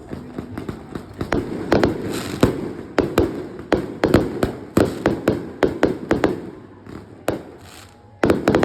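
Fireworks show: aerial fireworks going off in a rapid barrage of dozens of sharp bangs. They pause for about a second near the end, then a last quick cluster of bangs follows.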